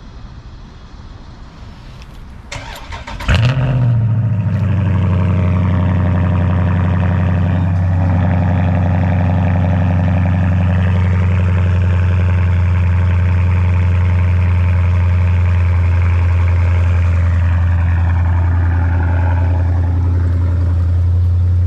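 2018 Dodge Charger R/T Scat Pack's 392 (6.4-litre) Hemi V8 cold-started through its exhaust: the starter cranks briefly about two and a half seconds in, the engine catches with a loud flare about three seconds in, then settles into a steady, loud idle.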